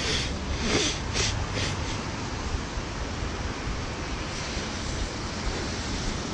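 Steady rain falling on a clear plastic umbrella held just overhead: an even hiss, with a few sharper taps in the first two seconds.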